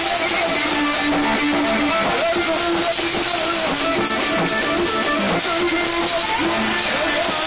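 Live amplified band music with a plucked-string lead and a singer on a microphone, steady and loud throughout.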